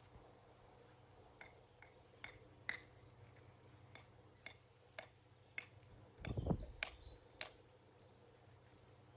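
Faint, scattered sharp clicks and taps from stone wall work, with a louder dull thud about six seconds in. A bird gives a short, falling chirp just after the thud.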